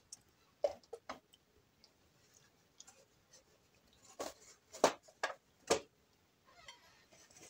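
Scattered short clicks and rustles of things being handled at close range, with a cluster of four louder ones between about four and six seconds in and a faint rustle near the end.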